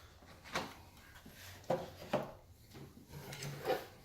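Boxes and packaging being handled: four or so short knocks and scrapes, with soft rubbing between them.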